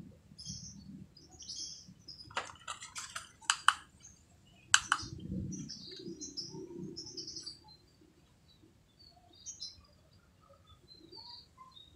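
Small birds chirping on and off in the background, in short high calls. About two seconds in comes a run of sharp clicks, then one louder click near five seconds, from handling the test clips and the plastic-cased component tester.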